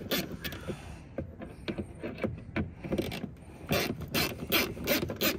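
Small hand ratchet with a T30 Torx bit clicking as it loosens a bolt, a run of quick sharp clicks that come thicker in the second half.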